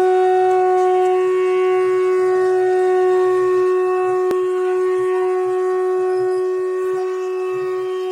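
A bansuri bamboo flute holding one long, steady note, played as a tone test of the flute. A faint click sounds about four seconds in.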